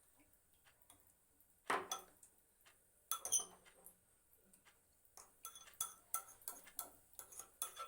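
Kitchen utensils clinking and scraping against a strainer set over a glass as grated onion is pressed to strain out its juice. A few separate clinks come in the first half, then a quicker run of small clinks near the end.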